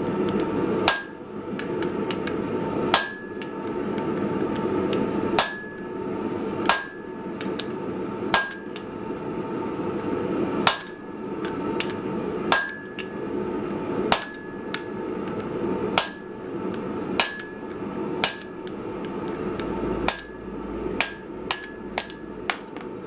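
Blacksmith's hammer striking red-hot coil-spring steel on an anvil, each blow with a short metallic ring. The blows come unevenly, roughly one every one to two seconds, with a quick run of lighter strikes near the end.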